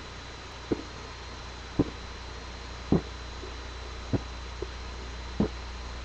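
A person's short, quiet burps, five of them about a second apart, with a fainter one between the last two.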